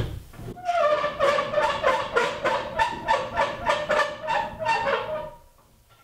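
Table saw blade-tilt mechanism squeaking as the blade is cranked over to a 20-degree bevel: a pitched, rhythmic squeak pulsing about three or four times a second, stopping about five seconds in once the blade is set.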